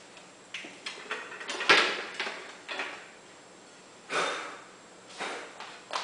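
Knocks, clicks and scrapes of a large glass chandelier panel being picked up and handled, the loudest knock about two seconds in.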